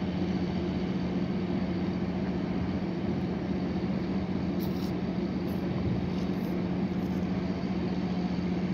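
Engine of the inter-island ship MV Aemman running at a steady cruising speed: an unchanging low hum. Under it is an even rushing of water and wind along the moving vessel.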